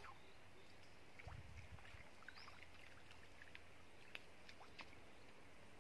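Near silence, with faint scattered ticks and light splashing of small hooked fish thrashing at the lake surface, and a few faint low thumps about a second and a half in.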